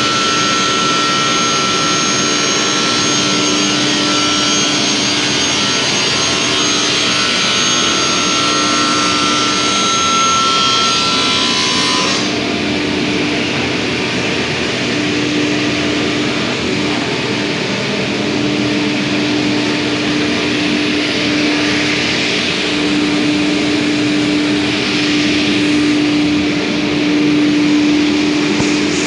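Industrial two-blade panel saw, main saw blade with scoring blade, running and cutting board, with a steady whine and a high hiss. About twelve seconds in, the high hiss and whine drop away, leaving a steadier hum from the machine.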